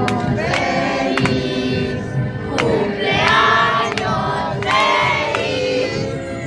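A group of children singing loudly together around a birthday cake, the voices overlapping and not quite in unison.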